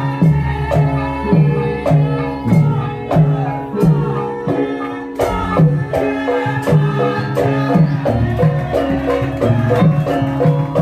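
Traditional Javanese lengger dance music: tuned percussion plays a repeating melody over a drum whose strokes bend down in pitch, at a steady beat.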